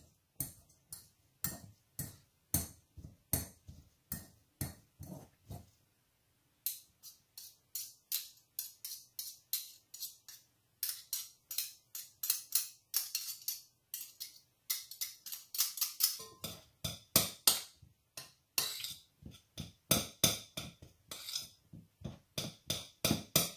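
Wire potato masher mashing cooked chickpeas in a mixing bowl: repeated sharp knocks of the masher against the bowl, about two or three a second, with a short pause about six seconds in.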